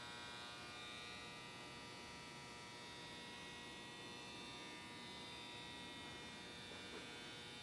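Faint, steady electrical hum and buzz with a thin high whine: room tone, with no work sound.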